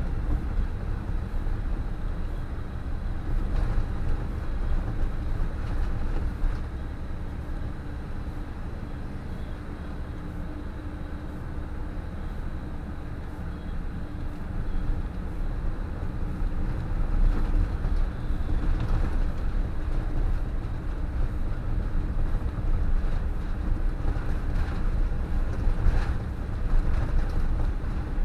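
PAZ 32053-70 bus on the move: a steady low engine and road rumble, with a few knocks and rattles scattered through it.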